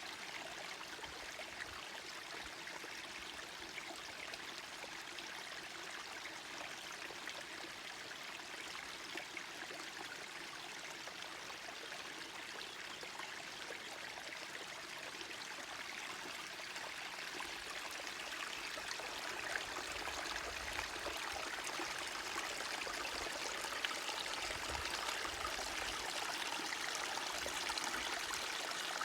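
Forest stream flowing and trickling in a steady wash of water noise, growing slightly louder partway through.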